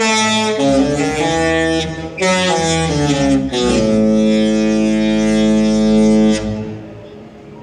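Disney Fantasy's musical ship horn playing a short tune: a run of loud horn chords that change pitch, with two brief breaks, ending on one long held chord that stops about six and a half seconds in.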